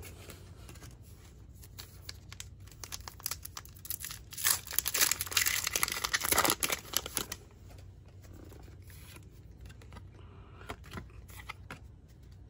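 Foil trading-card booster pack being torn open and crinkled, loudest for about three seconds from around four seconds in, then faint rustling as the cards are handled.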